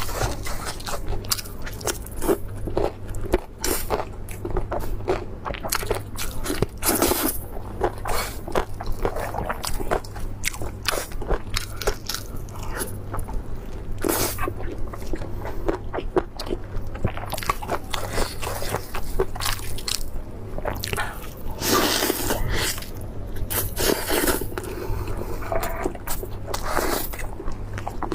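Close-miked eating: repeated biting and crunching of crisp food with chewing and wet mouth sounds, in irregular bursts.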